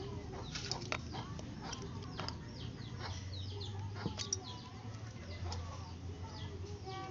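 Birds chirping over and over in short falling calls, over a steady low hum. Light metal clicks and scrapes come from a flat screwdriver prying at a valve stem seal in a motorcycle cylinder head.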